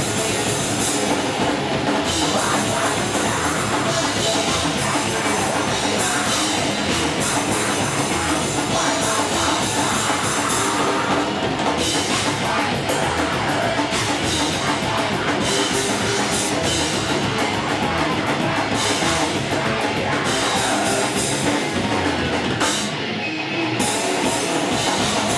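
Thrash metal band playing live, with drum kit and heavy guitars, and a brief drop in the sound near the end.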